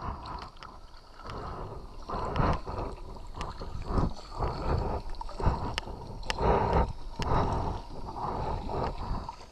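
Plastic sit-on-top kayak riding a shallow river riffle: water rushing and splashing against the hull, with irregular knocks.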